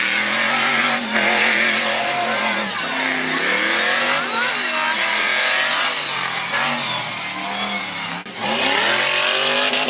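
Off-road buggy's engine revving hard, its pitch rising and falling again and again as it drives across a dirt course, with one brief drop a little over eight seconds in.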